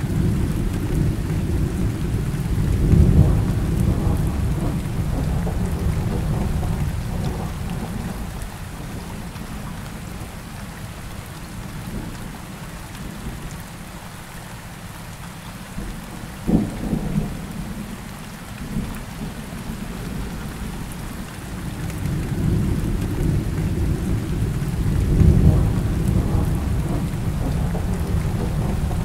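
Rainstorm recording: steady rain hissing, with long rolls of thunder that swell and fade near the start and again near the end, and a short sharp crack a little past the middle.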